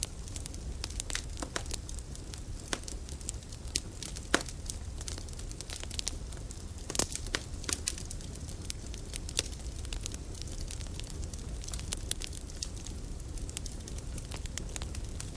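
Campfire burning, the wood crackling with irregular snaps and pops over a low steady rumble; two louder pops stand out, about four and seven seconds in.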